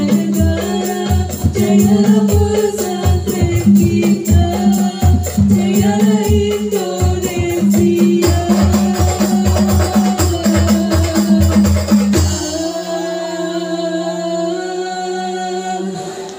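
Hadroh ensemble: women singing together over rebana frame drums and deep drum beats in a quick, even rhythm. About twelve seconds in the drums drop out and the voices carry on alone in long held notes.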